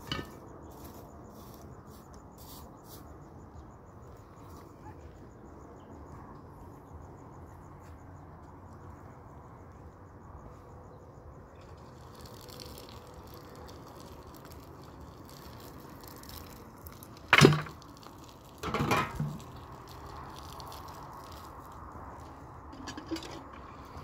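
Water poured from a plastic jug, splashing onto the ashes of a clay hearth, over a steady low background hiss. About two-thirds of the way through come two sharp knocks a second and a half apart, the loudest sounds.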